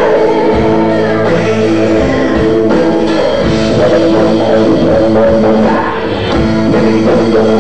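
Loud rock music with electric guitar and drum kit, an instrumental stretch of the song.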